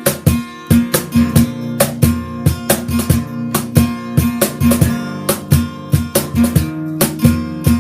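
Acoustic guitar strumming chords over a steady beat of cajon hits, an instrumental passage with no singing.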